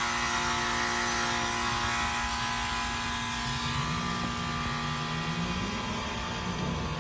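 York Stellar heat pump outdoor unit running: a steady hum with several steady tones over a broad whir of fan noise. About halfway through a low tone rises slowly in pitch, and a steady hum drops out shortly after.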